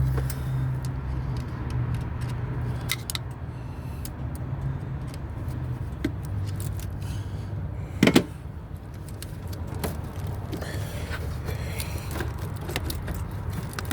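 Scattered light metallic clicks and clinks of hand tools and parts being worked in a car's engine bay, with one louder knock about eight seconds in. A steady low hum runs underneath.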